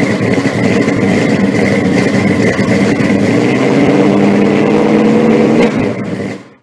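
A car engine running steadily, fading out quickly near the end.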